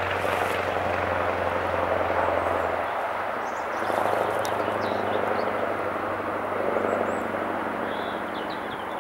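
Scania V8 truck engine running under load as the truck drives by. Its steady note breaks off about three seconds in, then comes back lower as the sound swells again.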